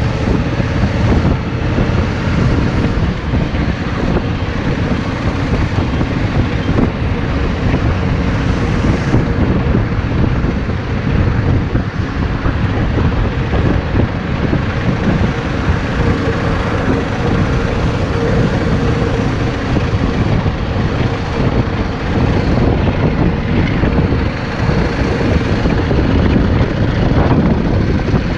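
Yamaha Drag Star 650's V-twin engine running steadily, with wind rushing over the microphone.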